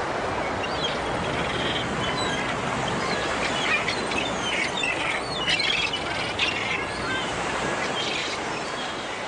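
A flock of seabirds calling with many short, sliding squawks and chirps, thickest in the middle stretch, over a steady rushing background of sea and open air.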